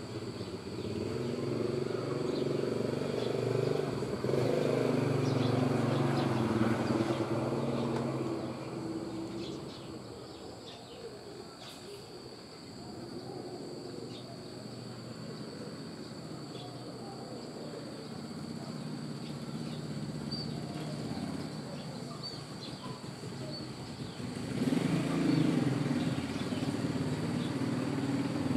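Motor vehicles passing, a low engine rumble that builds and fades over the first eight seconds and swells again near the end. In the quieter stretch between, short high chirps of scaly-breasted munias come through over a steady high-pitched hum.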